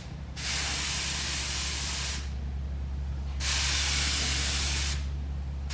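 Compressed-air paint spray gun spraying a light mist coat in two long hissing bursts, with a steady low hum underneath.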